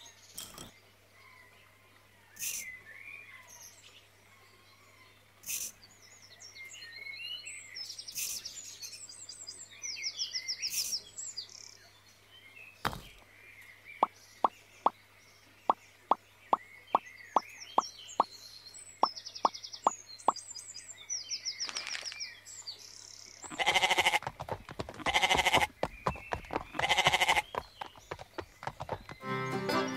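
Sheep bleating three times near the end, loud and drawn out. Before that, light birdsong chirps and a run of about fifteen sharp clicks, roughly two a second.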